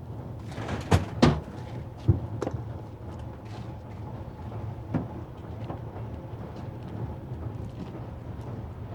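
A few sharp knocks and clunks over a steady low hum: two close together about a second in, two more a second later, and a lighter one about halfway through.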